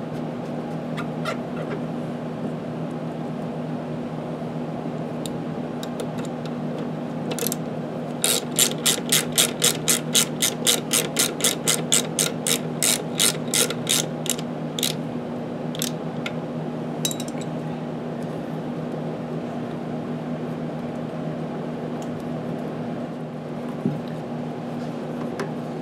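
Hand ratchet wrench clicking at about four clicks a second for several seconds, running in the bolt that holds a new brake line fitting on a motorcycle, with a few single clicks before and after. A steady low hum runs underneath.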